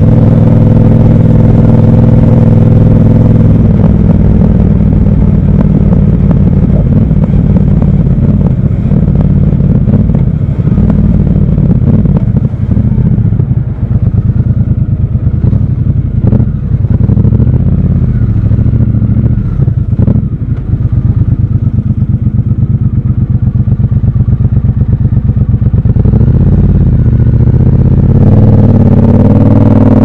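Triumph Scrambler 1200 XC's 1200 cc parallel-twin engine, heard from the rider's seat. It idles steadily for the first few seconds, then runs unevenly at low speed with a couple of sharp clicks midway, and revs rise near the end as the bike accelerates.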